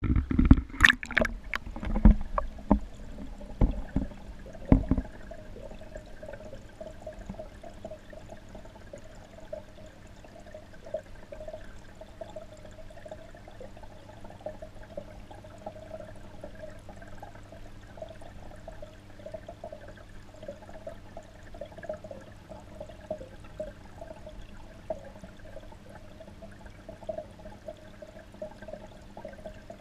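Knocks and splashes for the first five seconds as a camera is handled and dipped into a small goldfish pond, then steady, muffled water noise with a faint fluttering gurgle from under the surface.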